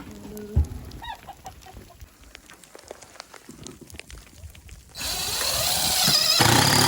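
Chickens clucking, with scattered small clicks and knocks. From about five seconds in, a loud rushing noise lasting about two seconds drowns everything else.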